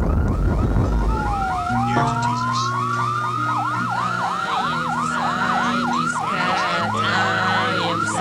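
A siren: after a short burst of rushing noise, one slow wail dips and then climbs, and about three and a half seconds in it switches to a fast yelp at about three swoops a second. Low held bass notes that change in steps run underneath.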